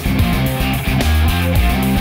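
Background rock-style music with guitar over a heavy bass line and a steady beat.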